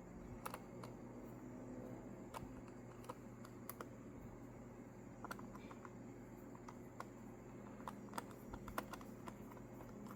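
Scattered faint small clicks and taps of a precision screwdriver and tiny screws against the plastic shell of a PS Vita 2000, as its case screws are being removed, over a low steady room hum.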